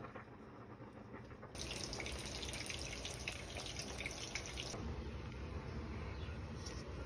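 Water running from a tap for about three seconds, starting and stopping suddenly, with quieter handling clicks and bumps before and after.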